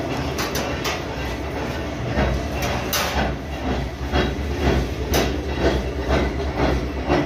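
Small petrol engine of a sugarcane juice cart running, a steady low hum that strengthens about two seconds in, with a metallic clatter repeating roughly twice a second. A few metal clicks near the start come from the cabinet door latch.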